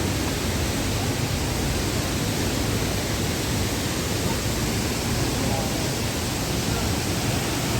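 A waterfall rushing steadily: a loud, even wash of falling water with no breaks.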